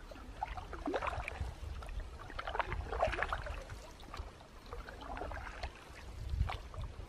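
Canoe paddle strokes in calm lake water: the blade splashing in and dripping as it comes out, about every two seconds.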